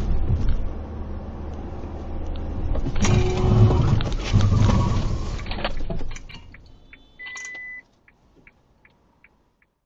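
Car cabin engine and road noise as recorded by a dashcam, rising to a loud noisy stretch about three seconds in that lasts a couple of seconds and then fades. Near the end there is a short steady beep, then faint ticking about twice a second.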